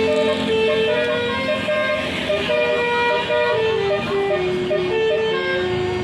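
Bus telolet horn playing a tune: a run of held notes stepping up and down, about two notes a second.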